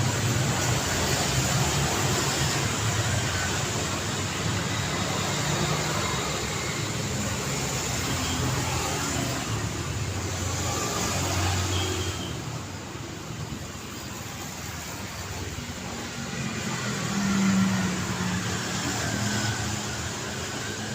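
Road traffic: vehicles passing in a steady wash of tyre and engine noise. The flow eases about midway, and one vehicle swells past near the end.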